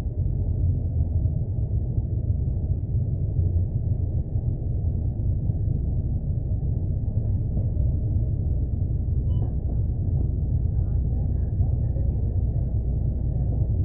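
Steady low rumble of a bus's engine and running gear, heard from inside the bus as it slows and stands behind another bus at a stop.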